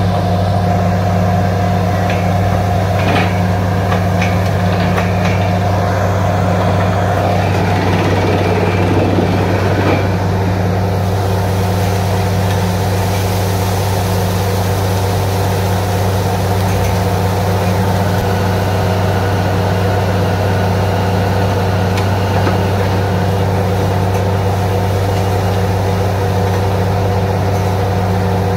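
Truck-mounted borewell drilling rig running steadily, its diesel engine giving a constant low drone. From about eleven seconds in, a hiss of compressed air joins it as spray and dust blow out of the borehole.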